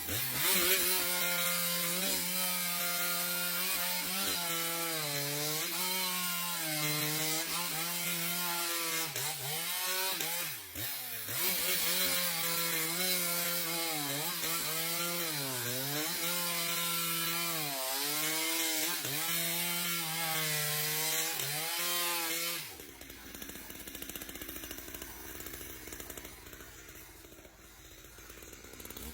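Chainsaw engine running at high revs while cutting wood, its pitch sagging and recovering again and again as the chain bites. About 23 seconds in it stops abruptly, and a quieter, noisy hiss follows.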